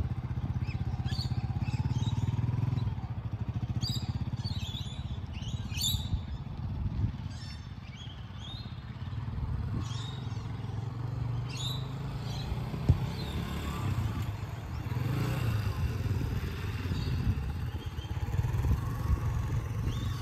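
Yamaha XT250's single-cylinder engine running at low speed, heard from a distance: it eases off as the bike slows to a stop and revs up again as it pulls away in first gear.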